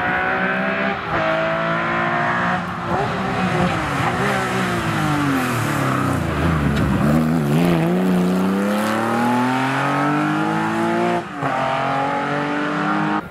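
Porsche 911 rally car's air-cooled flat-six at full effort. It revs up through two quick upshifts, then drops in pitch with uneven blips as it brakes and changes down through the middle. It then accelerates hard again, with another upshift near the end.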